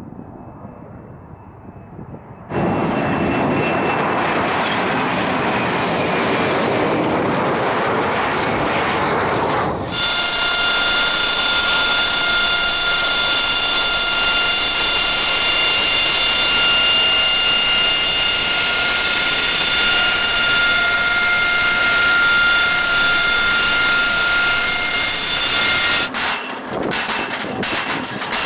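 AV-8B Harrier II's Rolls-Royce Pegasus turbofan. Its jet roar comes in suddenly about two and a half seconds in while the jet hovers. From about ten seconds in, a close Harrier taxis with a steady, high, multi-toned turbine whine. Near the end, the whine gives way to sharp clicks and knocks of hand work on the aircraft.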